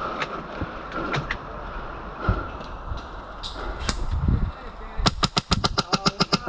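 Airsoft gun firing: a few scattered single shots, then a rapid string of about a dozen shots at roughly ten a second near the end.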